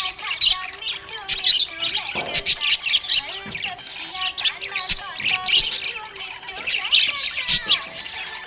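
Several budgerigars chirping and chattering without a break, many quick high chirps and warbles overlapping.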